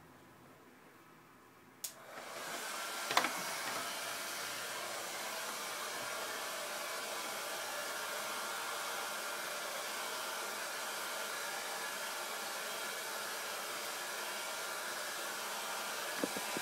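A click about two seconds in, then an electric blower starts up and runs with a steady rushing noise; a short knock sounds just after it starts.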